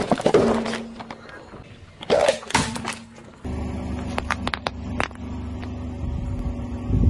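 A car tyre rolling onto a plastic juice carton, with two loud bursts in the first three seconds. Then a steady engine hum, with a quick series of sharp cracks as the tyre crushes a row of plastic toothpaste tubes.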